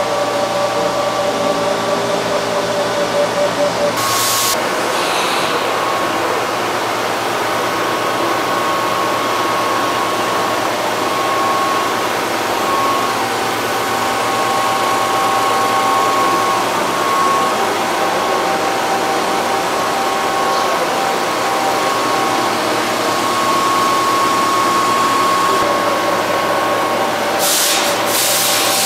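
Running industrial machinery: a steady mechanical hum with a few whining tones that come and go, broken by short bursts of air hiss about four seconds in and again near the end, typical of pneumatic valves venting.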